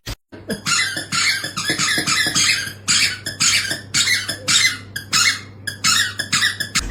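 A quick, irregular run of short high squeaks, about three a second, over a faint steady hum.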